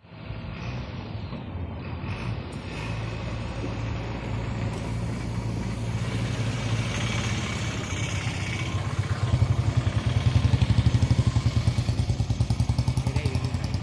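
An engine running steadily, growing louder with a more pronounced even throb about nine seconds in.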